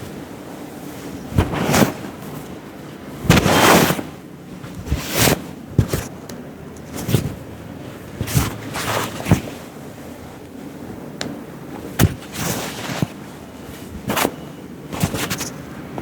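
Sharp, irregular hand slaps and taps of a barber's massage strokes on the head and body, about twenty strikes in all, with a longer, denser burst about three seconds in.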